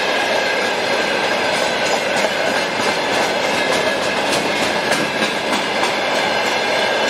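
Freight train of open gondola wagons rolling past at speed: a steady rumble of wheels on rail, with a thin steady high whine and a run of clickety-clack from wheels crossing rail joints in the middle.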